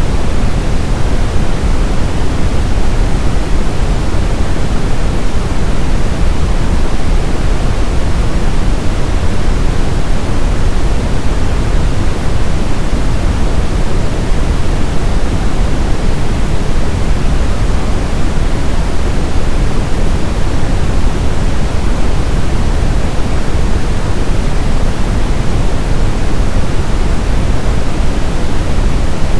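Brown noise: a steady, deep hiss weighted toward the low end, unchanging throughout.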